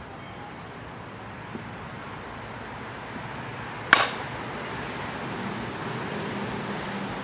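A softball bat striking a ball once, about four seconds in: a single sharp crack with a short ringing tail, over steady background noise.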